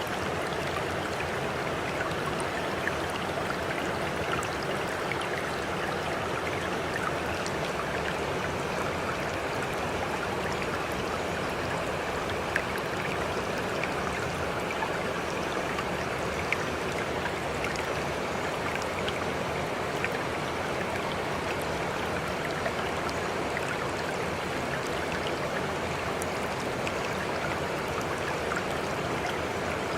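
Water of a stream flowing steadily, with small splashes and drips ticking here and there and a couple of slightly sharper splashes in the middle.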